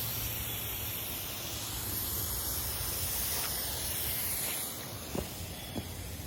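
Pressure washer spray hissing steadily on paver stones, easing off about three-quarters of the way through, then a couple of short sharp clicks.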